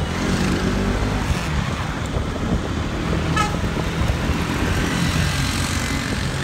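Motorbike engine running steadily while riding along a road, mixed with wind and road noise and passing traffic. A short horn toot about three and a half seconds in.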